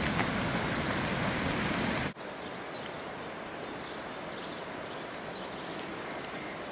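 Loud, even rushing noise on the microphone as it moves with the runners, cut off abruptly about two seconds in and replaced by quieter steady outdoor background noise.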